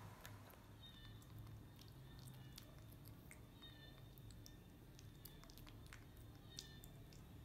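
Faint chewing and small wet clicks of a baby macaque eating mangosteen flesh, with a few short, faint high squeaks now and then.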